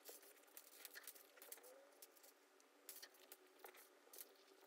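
Near silence, with faint rustling and small scattered clicks of cloth and a zipper being handled.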